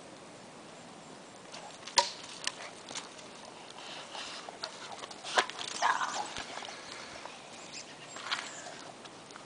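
Footsteps of a person and a large dog's paws on a forest dirt path, with scattered sharp clicks and knocks, the loudest about two seconds in, and short bouts of rustling.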